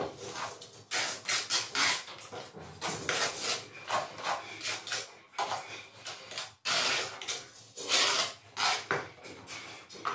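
Trowel scraping tile adhesive across the back of a skirting tile in quick, uneven strokes.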